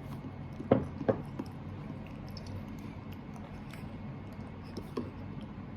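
A few short, soft clicks and knocks, a pair about a second in and another near the end, over a faint steady low hum: tableware and eating sounds at a toddler's meal.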